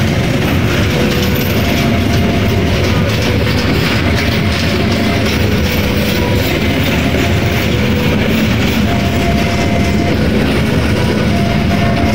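KA Sancaka's stainless-steel passenger cars rolling past close by as the train pulls out of Yogyakarta Tugu station, a loud, steady rumble of wheels on the rails. Faint thin whining tones come and go over it.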